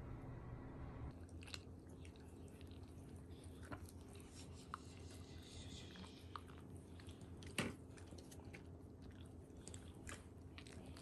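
A Shiba Inu licking and smacking its mouth as dental gel is rubbed onto its teeth with a finger: quiet, scattered wet clicks and smacks, one sharper click about two-thirds through.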